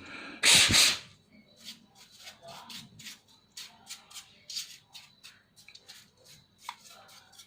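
Scratching, rubbing and small clicks as a laptop cooling fan is cleaned of dust and handled. There is a loud rush of noise lasting about half a second near the start.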